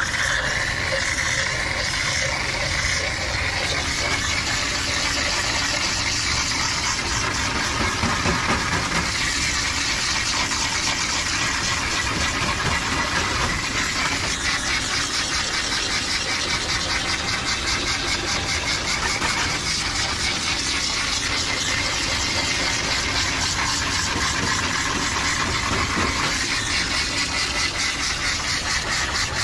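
Recirculating dog-bathing system running steadily: its pump motor drives shampoo water through a hose nozzle that sprays into a wet dog's coat.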